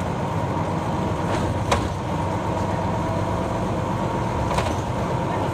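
City bus under way, heard inside the cabin: steady engine and road rumble with a faint steady whine. Two sharp clicks sound, the louder about one and a half seconds in and the other near the end.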